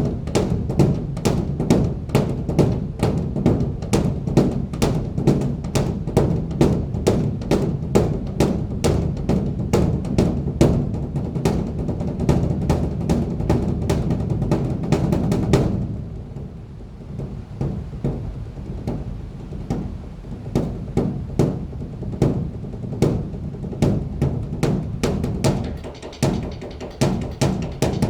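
A large Buddhist temple drum beaten in a fast, steady rhythm of about two to three strokes a second. A little past halfway it suddenly drops quieter, and the beating carries on softer.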